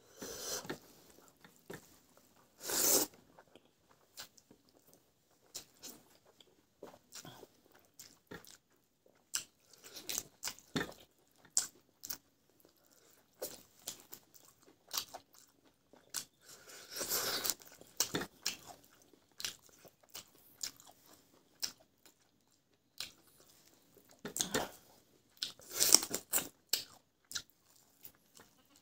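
Close-up eating sounds of a man biting and chewing meat off a roasted chicken leg held in his hand. The bites and chewing come at irregular intervals, with a few louder bursts: one a few seconds in, one around the middle and a cluster near the end.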